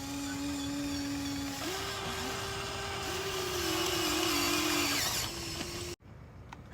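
Small electric gear motors of a Huina 1594 RC excavator whining as the arm is worked. The pitch steps up about one and a half seconds in and wavers under changing load, then cuts off abruptly near the end.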